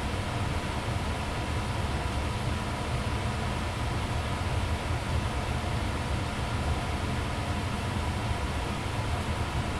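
Blower of a 2002 Ducane furnace running steadily: an even low rumble with a faint steady hum above it.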